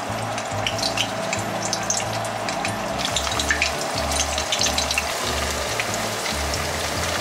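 Karaage (Japanese fried chicken) deep-frying in hot oil in a frying pan: a steady sizzle with many small crackles. Soft background music plays under it.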